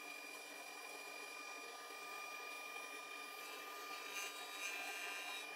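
CNC router spindle running with a steady high whine while cutting the profiles out of Kydex sheet; the cutting noise gets a little busier about four seconds in.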